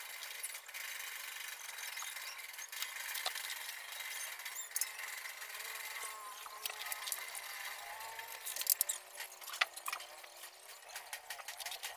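Quiet workshop background with a few light clicks and taps about nine seconds in, from hand tools being handled while an aluminium door profile is marked out.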